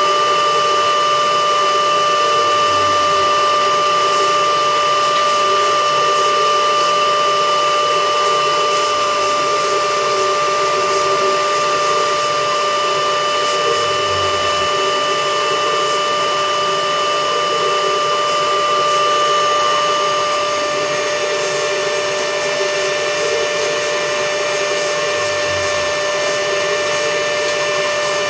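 Protem US 150 pipe bevelling machine running, its tool plate turning and cutting the end of a large pipe, with a steady motor whine over a hiss. A low thud comes about every eleven seconds, and the whine changes tone about twenty seconds in.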